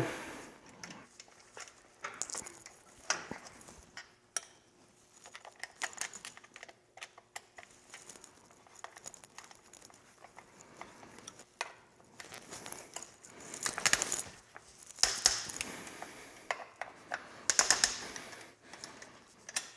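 Scattered light metallic clinks and taps of steel dethatcher wheel parts and a tool being handled while a wheel's height collar is set and tightened, growing busier and louder in the second half.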